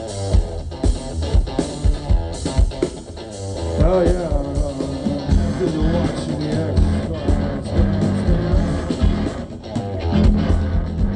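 Live rock band playing: electric guitars and bass guitar over a drum kit. A steady drum beat leads the first few seconds, then held, bending notes come in about four seconds in over the bass.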